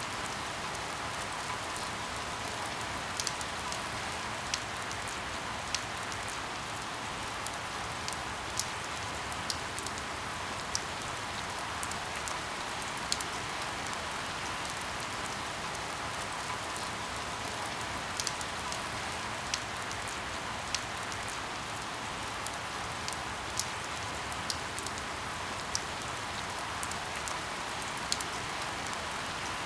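Steady rain falling on a surface, an even dense hiss, with scattered sharp ticks every second or two.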